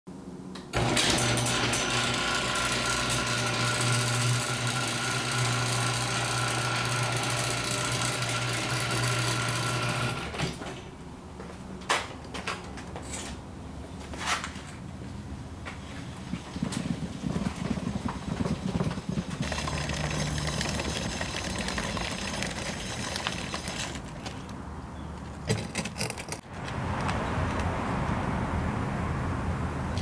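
A motor-driven machine running steadily for about ten seconds, then cutting off; scattered clicks and knocks follow.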